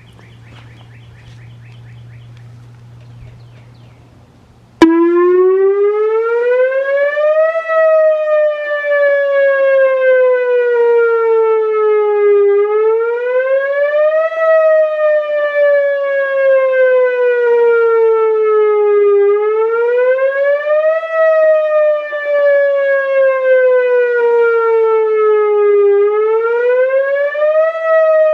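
Outdoor warning siren on its weekly test, switching on abruptly at full volume about five seconds in after faint background. It sounds a wail whose pitch rises quickly, then sinks slowly, the cycle repeating about every seven seconds.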